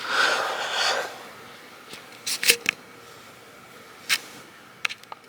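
Handling noise on a handheld camcorder: a rustle in the first second, then a few scattered sharp clicks and taps.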